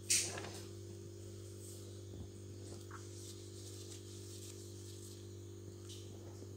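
Steady low hum throughout, with a brief sharp scraping noise just after the start and a few faint scrapes as a spatula smooths whipped cream over a cake.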